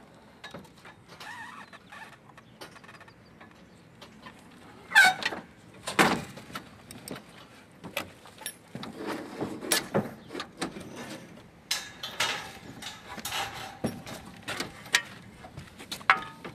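Solar panel frames being handled onto aluminium roof mounting rails: irregular knocks, clicks and scrapes of metal on metal. The two loudest knocks come about five and six seconds in.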